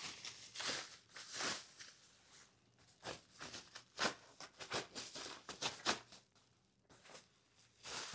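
White packaging wrap rustling and crinkling in irregular bursts as a glass water pitcher is pulled out of it by hand.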